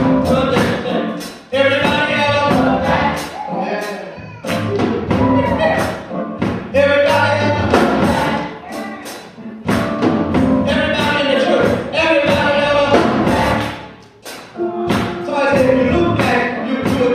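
Live gospel choir singing with band accompaniment, drums keeping a steady beat under the voices.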